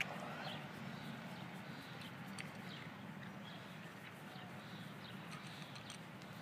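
Cat chewing dry kibble: faint, irregular small crunches over a low steady hum.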